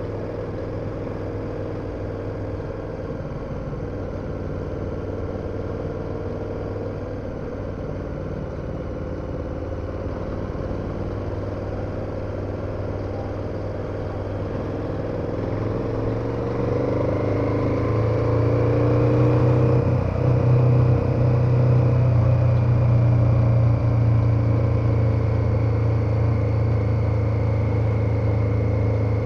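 KTM 1290 Super Adventure's V-twin engine pulling at a steady cruise, then accelerating about halfway through, louder and rising in pitch. There is a brief dip near two-thirds of the way, then it holds at the higher speed.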